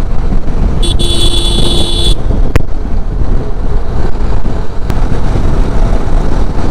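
Motorcycle riding at around 65–70 km/h, with a loud, steady rush of wind and road noise. About a second in, a horn sounds once for just over a second, and two brief sharp clicks come later.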